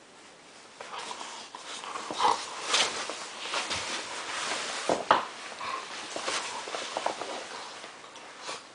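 Two dogs play-fighting at the mouth of a fabric pet tunnel: scuffling and rustling of the tunnel fabric, with short dog vocalizations. Several sharp knocks stand out, the loudest about two and five seconds in.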